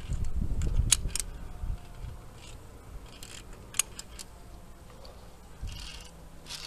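Via ferrata lanyard carabiners clicking and clinking against the steel safety cable, a few sharp metallic clicks, with a low rumble in the first couple of seconds.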